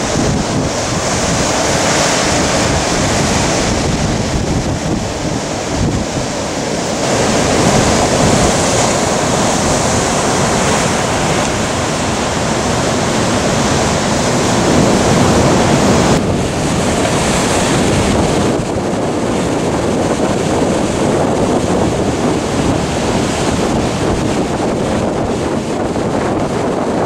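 Heavy storm surf crashing and rushing, with strong hurricane wind buffeting the microphone. The rush swells and eases every few seconds.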